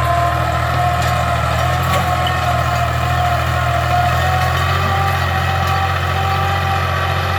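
Tractor engine running steadily under load while ploughing, with a slowly wavering higher tone over the low engine sound.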